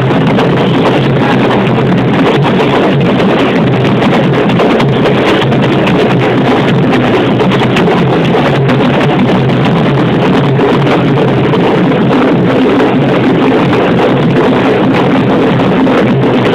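Loud carnival parade music driven by drums.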